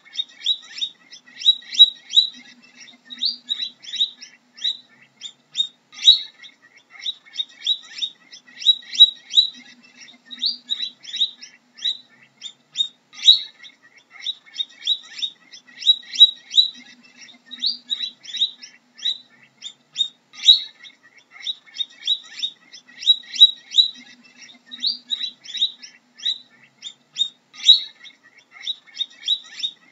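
Guinea pig squeaking: short high-pitched squeaks in quick runs, repeated over and over.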